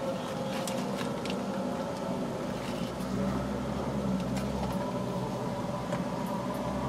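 Steady hum of a car's running engine heard inside the cabin, with a few faint clicks scattered through it.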